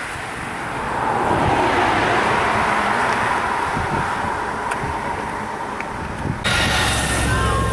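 A pack of racing bicycles passing close by: a swelling and fading whoosh of tyres and freewheels. About six and a half seconds in, the sound changes abruptly to wind buffeting the microphone.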